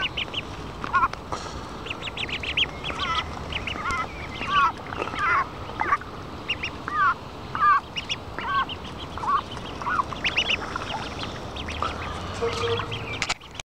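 Ducklings peeping over and over while being hand-fed: many short, high calls, some falling in pitch, in quick irregular runs.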